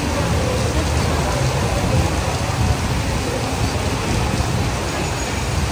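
Steady rain hiss on a wet street, with a low rumble underneath.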